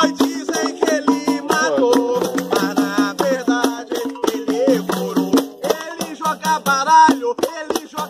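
Live Umbanda ritual music: a hand drum (atabaque) beaten with the hands in a fast, steady rhythm, with a shaker rattling along and voices singing a ponto.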